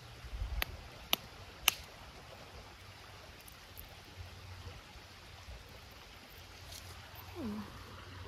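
River water running with a steady low rush. Three sharp clicks fall in the first two seconds, and a short falling tone comes near the end.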